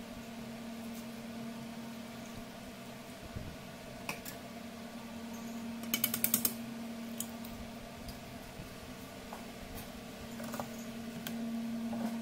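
Steady low hum of a kitchen appliance, with scattered light clicks and taps and a quick rattle of sharp clicks about six seconds in, as liquid and an egg go into pancake mix in a stainless steel bowl.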